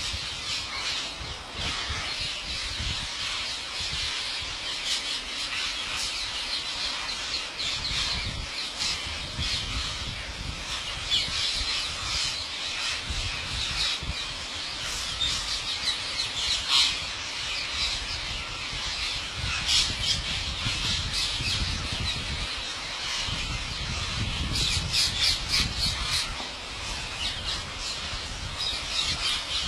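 Parrots screeching and squawking in many short, overlapping calls, with a low rumble underneath.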